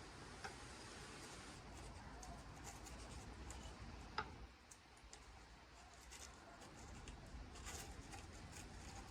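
Faint scratching and light clicks of cardboard being handled and worked, with one sharper click about four seconds in.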